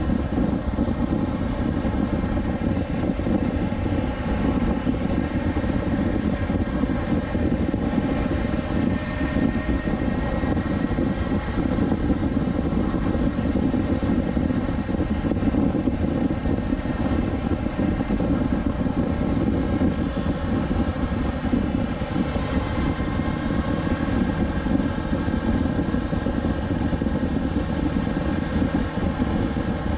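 2020 BMW S1000XR's inline-four engine running at a steady cruise, its note holding nearly constant with only slight drifts in pitch.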